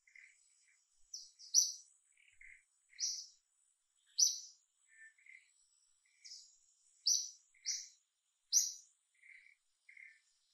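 Forest birds chirping: short, high chirps repeated irregularly, some louder and nearer than others, over a faint steady high insect whine.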